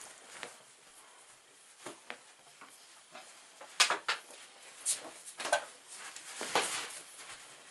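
Scattered clicks, knocks and rustles of objects being handled close by, with several sharper knocks and a brief squeak in the second half.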